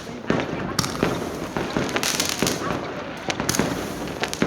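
Fireworks going off: a string of irregular sharp bangs, roughly two a second, over a continuous crackle.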